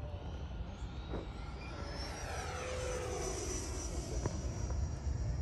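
Electric ducted fans of a 64mm RC F-15 Eagle model jet whining as it flies past overhead, the pitch sliding down about two seconds in as it goes by. Low wind rumble on the microphone underneath.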